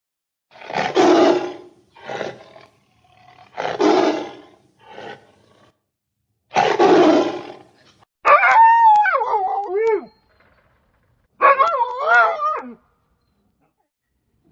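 An animal roaring in five harsh bursts, then two long wavering howls that drop in pitch.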